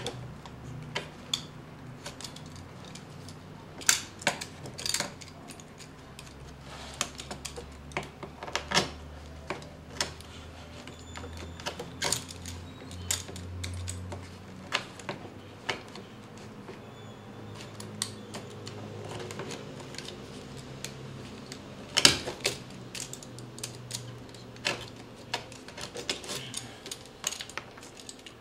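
Utility knife trimming the edges of a leather holster blank on a wooden board: irregular sharp clicks and taps as the blade cuts through and knocks against the board, over a faint low hum.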